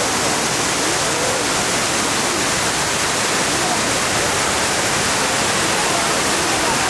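Shiraito Falls' wide curtain of spring water spilling over a rock wall in many thin streams, making a steady rushing hiss. Faint voices of a crowd sound underneath.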